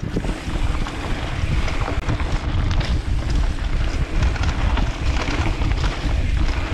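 Wind buffeting an action camera's microphone during a fast mountain bike descent on a dirt singletrack: a steady heavy rumble, with the tyres rolling over the ground and small clicks and rattles from the bike throughout.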